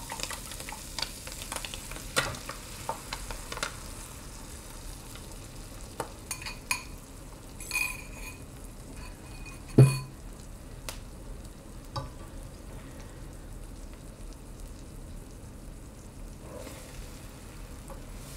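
Beaten eggs sizzling as they fry in a skillet with fried corn tortilla pieces and ham. In the first few seconds a fork clicks quickly against the glass bowl as the eggs are scraped out, and about ten seconds in there is one loud knock, with a few lighter clicks scattered through.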